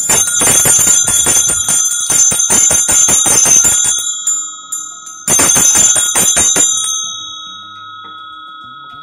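A pair of bronze puja hand bells (jodi ghante) shaken together by hand, clanging rapidly for about four seconds. After a short pause there is a second burst of about a second and a half, then a steady ringing that slowly fades.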